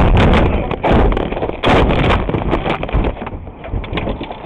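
Car crash heard from inside the car: a loud impact at the start and two more heavy crashes about one and two seconds in, followed by a run of smaller knocks and rattles that thins out.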